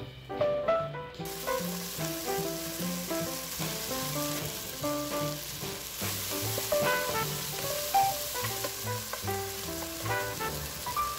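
Diced onions and tomatoes sizzling as they fry in a nonstick pan; the hiss starts about a second in. Jazz background music plays throughout.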